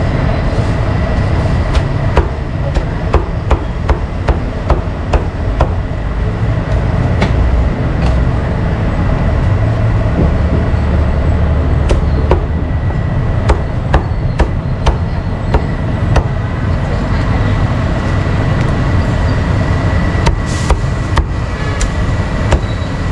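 Meat cleaver chopping roast duck on a wooden chopping block: sharp knocks in runs of a few strokes a second, with pauses between the runs. A steady low rumble runs underneath.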